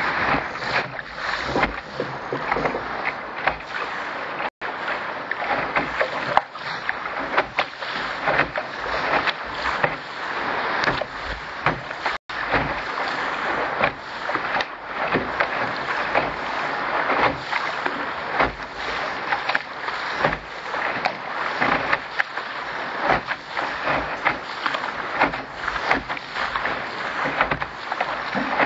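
Water rushing and splashing against the hull of a Contender sailing dinghy under way, a continuous uneven wash with frequent small slaps and spray. The audio cuts out for an instant twice.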